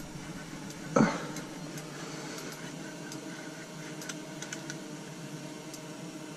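Spinning fishing reel being handled and cranked: faint, scattered small clicks over a low steady hum, with one short louder sound about a second in.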